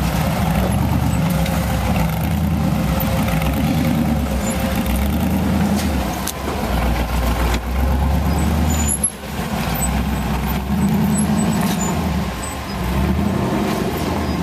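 Off-road race car engine running at low revs, the throttle coming on and off every second or two as it works down a rocky trail, with a brief drop in sound about nine seconds in.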